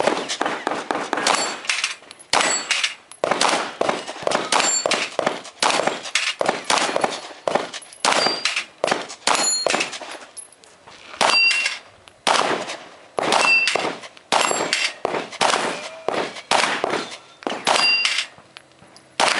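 Strings of handgun shots fired at a steel plate rack, a quick shot every fraction of a second with a short pause about ten seconds in. Many shots are followed by a brief metallic ding as a steel plate is hit.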